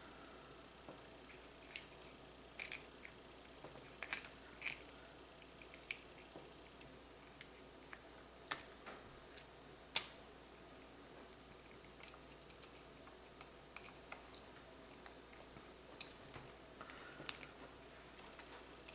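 Faint, irregular light clicks and scrapes of hands working a plastic replacement plug onto a power cord, fitting its housing and screws together. The sharpest click comes about ten seconds in.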